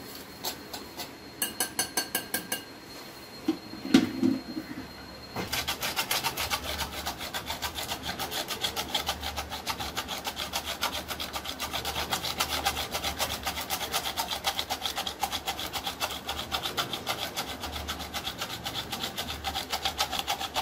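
Green plastic sieve shaken over a metal pan, sifting a cornflour and powdered sugar mix: a fast, even rasping that starts about five seconds in. Before that, a few light clinks and a knock.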